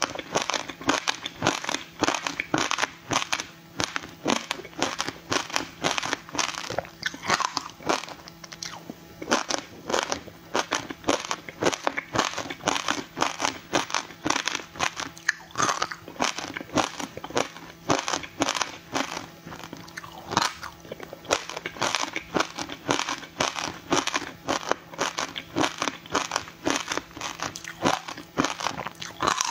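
Close-up biting and chewing of a block of frozen passion fruit ice: a dense, continuous run of sharp, crackling ice crunches, several a second.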